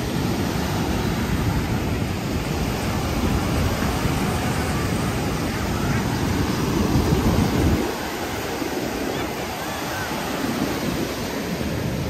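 Ocean surf washing onto the beach, with wind buffeting the microphone. The low wind rumble drops away suddenly about two-thirds of the way through, leaving the steady wash of the waves.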